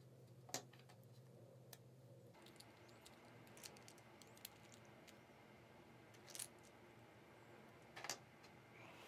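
Near silence with a low steady hum, broken by a handful of faint, sharp clicks and taps as small 3D-printed plastic landing-gear parts and a precision screwdriver are handled.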